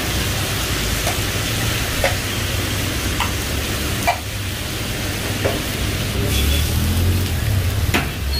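Karahi cooking under lids in iron woks over open gas burners: a steady sizzle and hiss over the low rush of the flames, with a few short clicks.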